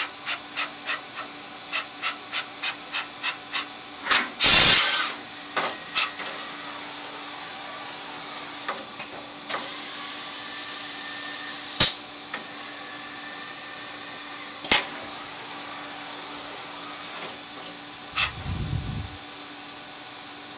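Solder paste stencil printer running, with a constant hum underneath. For the first few seconds it clicks evenly about three times a second. About four seconds in comes a loud short hiss, and later a steadier hiss lasts several seconds with a couple of sharp clicks and a low thump near the end.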